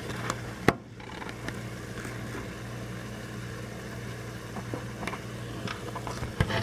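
Tomatoes simmering in a pan: a steady hum with a faint sizzle as their water cooks off. Scattered clicks and knocks come from the camera being handled and set down, the loudest about a second in and near the end.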